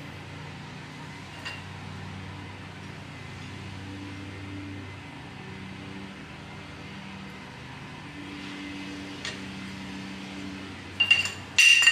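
Steady low hum of a workshop fan or air conditioner; near the end, a few loud, sharp metallic clinks with a bright ringing tone, like a metal part knocking onto a hard surface.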